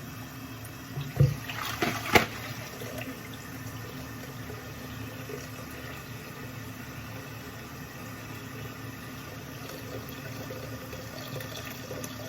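Tap running steadily, left on while the water heats up. A few short knocks sound about one to two seconds in.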